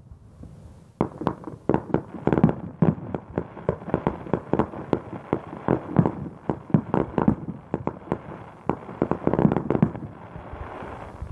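Aerial fireworks shells bursting in a rapid string of loud bangs, several a second, starting about a second in and thinning to a low rumble near the end.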